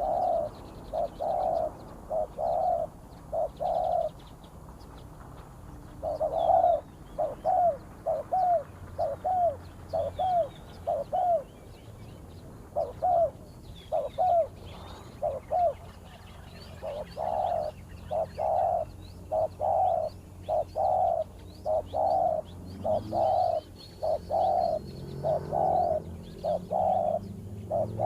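Spotted doves cooing in runs of short low coos, about two a second, with brief pauses between runs. Faint chirps of small birds sound behind.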